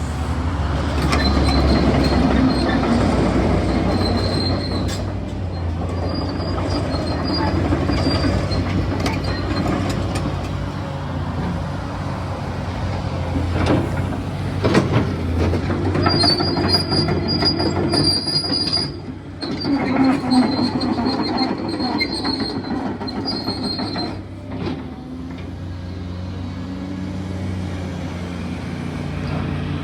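Caterpillar 336D L hydraulic excavator working, its diesel engine running steadily under high metallic squeals that come and go and clanking metal, with a few sharp knocks around the middle.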